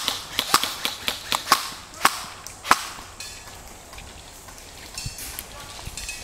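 Airsoft guns firing single shots, sharp snaps at irregular intervals of about a third to half a second through the first three seconds, then a few more near the end.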